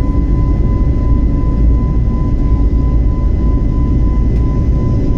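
Jet airliner cabin noise during the climb after takeoff: a loud, steady low rumble of engines and rushing air with a thin steady whine on top.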